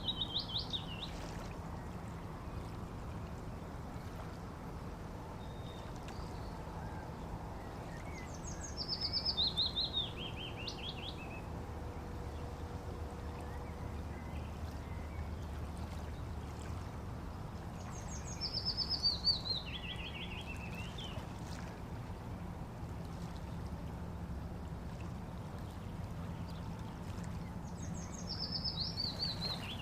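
Waterside ambience: a steady low rush of flowing water, with a songbird repeating a short song about every ten seconds, each phrase stepping down in pitch and ending in a brief trill.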